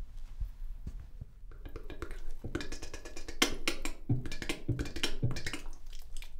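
A man's mouth-and-voice warm-up at the mirror: after a quiet start, a quick run of clicking, popping mouth noises and short voiced sounds, like beatboxing, with a few heavier low pops a little past the middle.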